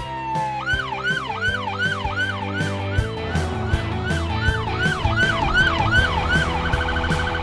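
Police car's electronic siren: a falling wail gives way about half a second in to a rapid yelp, rising and falling about three times a second. Near the end it switches to a faster pulsing tone. Background music with a steady beat plays underneath.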